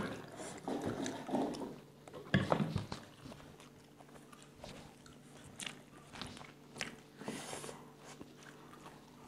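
People eating rice with their hands: soft chewing and scattered small clicks and taps from hands and tableware, the loudest a little over two seconds in. A faint steady hum runs underneath.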